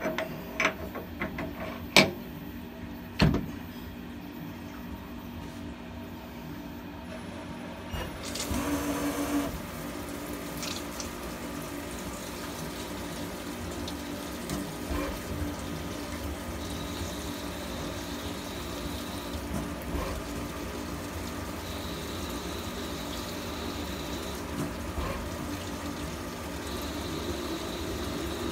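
CNC lathe machining a rifle barrel with flood coolant. A few sharp clicks and knocks come in the first few seconds. About eight seconds in, a splashing surge starts as the coolant comes on, and after that the spindle runs with a steady hum under the constant splash of coolant, while a faint high tone comes and goes three times near the end.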